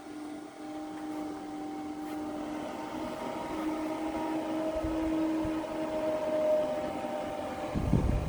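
Small DC electric fan motor running with a steady hum; its pitch shifts up slightly midway. A low rumble comes in near the end.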